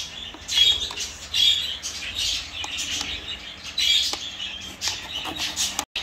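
Budgerigars chirping and squawking in short, raspy, high-pitched bursts, about one a second.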